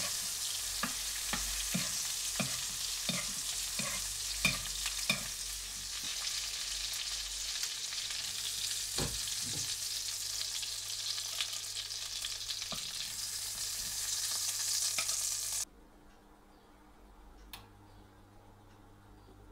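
A steak sizzling and spitting as it fries in hot foaming butter in a non-stick pan. A spoon knocks against the pan about twice a second for the first few seconds as the butter is basted over the meat, with one more knock later. The sizzling cuts off suddenly near the end.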